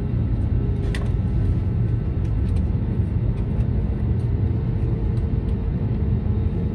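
Steady low cabin rumble of an Airbus A320neo-family airliner rolling out on the runway just after touchdown, ground spoilers raised as it decelerates, with a few light rattles and clicks.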